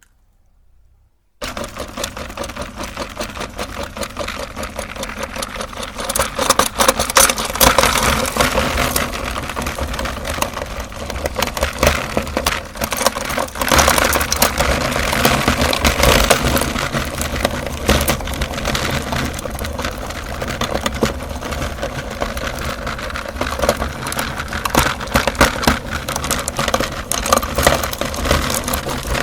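Electric meat grinder switched on about a second in, its motor running steadily with a dense crackling crunch as it grinds hard chocolate umbrella candies.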